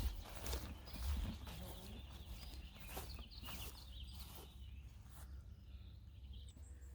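Scattered taps and knocks over a low rumble, with faint bird chirps; it grows quieter after about five seconds.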